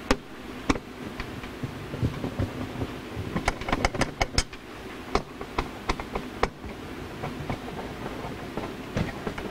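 Scattered sharp clicks and small knocks of a hand screwdriver turning out the screws of a hot tub's plastic control box cover, with the clicks bunched together around the middle.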